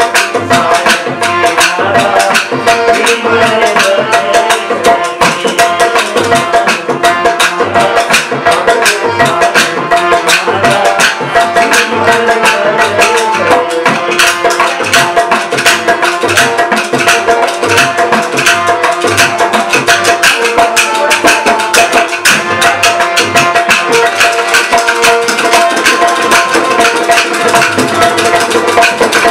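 Rajasthani folk instrumental passage: a harmonium holds steady notes while a dholak beats a driving rhythm and khartal wooden clappers click rapidly over it.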